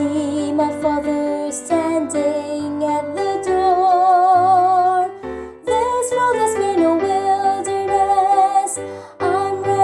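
Gospel song with its accompaniment and a female voice holding long notes with vibrato, no clear words.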